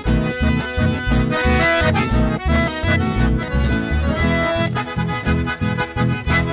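A chamamé band playing live: a piano accordion carries the melody in held, reedy chords over an evenly pulsing electric bass line.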